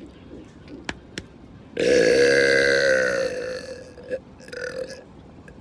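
A man's long, loud burp about two seconds in, lasting roughly a second and a half; its pitch dips at the start, then holds and tails off.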